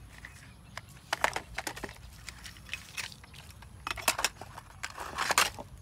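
Irregular crackling and clattering of plastic toy trucks being handled and pulled out from among dry leaves and twigs, with scattered clusters of sharp clicks and the loudest ones about four seconds in and near the end.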